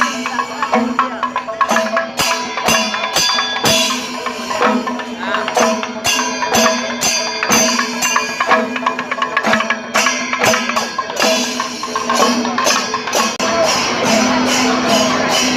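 Music with rapid, dense percussion strokes over steady held notes.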